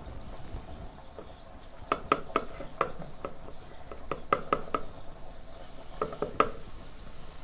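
Fingers patting a ball of vade dough flat on a wet cloth over a steel plate: quick runs of taps, about two, four and six seconds in.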